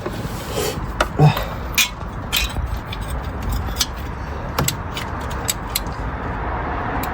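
Scattered metallic clicks and clinks of hand tools at work on the spark plugs in a truck's engine bay, irregular and a second or so apart, over a steady low rumble.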